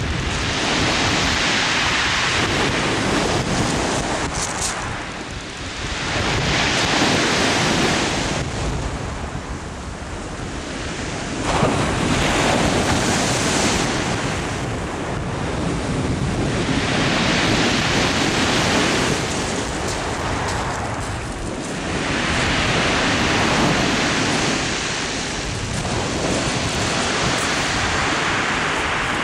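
Sea surf breaking on a shingle beach and washing back over the pebbles, a loud rushing that swells and fades about every five seconds.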